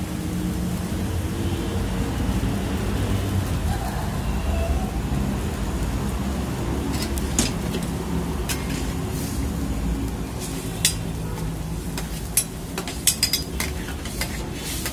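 Chicken karahi broth boiling hard in a steel wok, a steady bubbling hiss over a low rumble. From about halfway in come sharp metal clinks, bunched near the end, as a spatula and tongs are worked against the wok.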